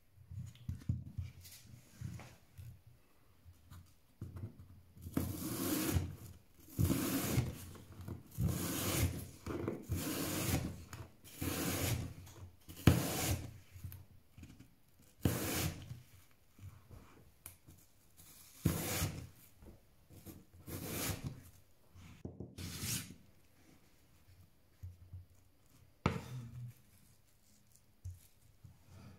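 Large kitchen knife slicing through a raw apple onto a bamboo cutting board: a run of short, crisp cuts, roughly one a second, each rasping through the fruit and ending on the wood.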